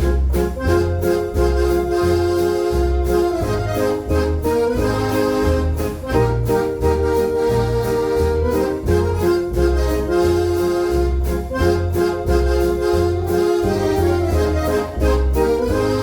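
Eminent F217 organ with a Decap dance-organ sound playing a foxtrot: held accordion-like chords and melody over a steady, evenly pulsing bass beat.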